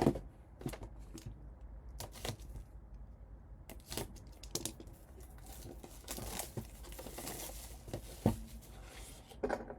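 Trading-card box packaging being torn open and crinkled, with scattered sharp crackles and taps and a denser stretch of crinkling about two-thirds of the way through.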